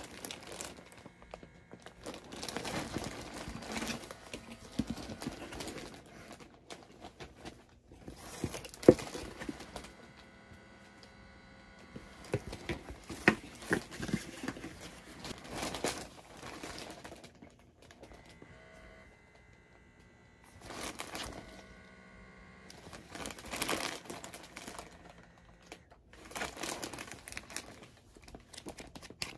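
Handling noise: bursts of rustling and crinkling as objects are moved about, with scattered small clicks and knocks. The loudest is a sharp click about nine seconds in.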